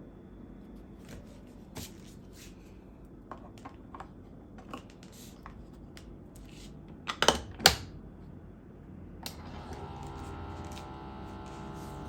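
Scattered light clicks and taps of small objects being handled, with two loud sharp clacks about seven seconds in, followed from about nine seconds by a steady hum carrying several tones.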